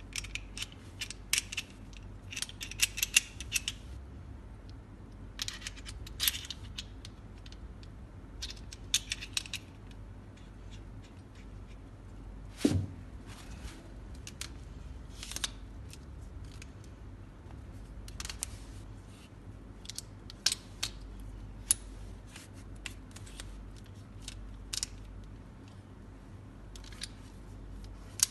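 Clicks, taps and rattles of a compact tabletop tripod being handled: its quick-release plate and ball head fitted and its leg sections adjusted, in short clusters, with one brief falling squeak near the middle.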